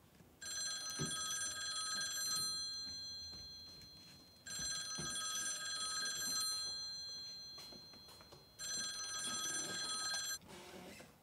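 Telephone bell ringing three times, each ring about two seconds long and fading slowly, with about two seconds between rings: an incoming call.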